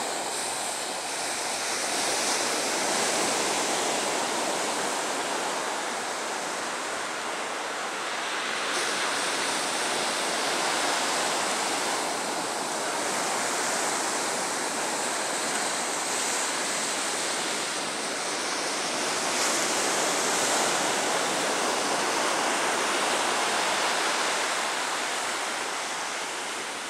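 Ocean surf breaking on a sandy beach: a steady wash of rushing water that swells and eases as the waves come in.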